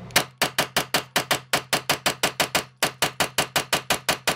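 Kel-Tec Sub 2000 Gen 2 pistol-caliber carbine fitted with a muzzle brake, fired in rapid semi-automatic strings at about six shots a second.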